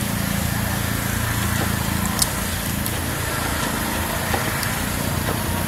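Small engine running at a steady pitch, with a couple of short clicks.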